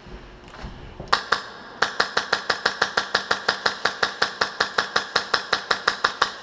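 Airsoft gun firing: two shots about a second in, then a steady rapid string of shots at about six a second for some four seconds.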